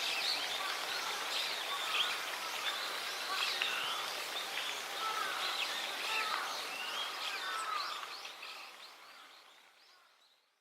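Wild birds chirping and calling, many short calls overlapping over a steady outdoor hiss, fading out over the last couple of seconds.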